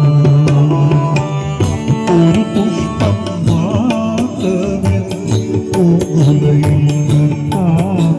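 Live band music through a PA system: a man sings a wavering melody into a microphone over electronic keyboard and a steady drum beat.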